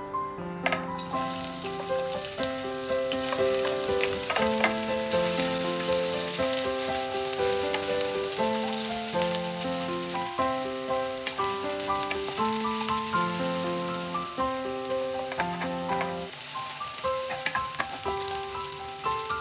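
Chicken liver and gizzards frying in a pan: a steady sizzle that starts suddenly about a second in and keeps going. Background music plays a melody over it.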